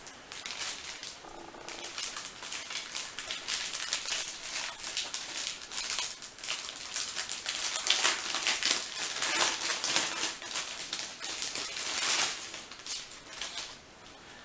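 Plastic packaging bag crinkling and crackling as it is worked open by hand and a folded fabric flag is pulled out. A rapid, uneven run of crackles, busiest in the middle, that dies down near the end.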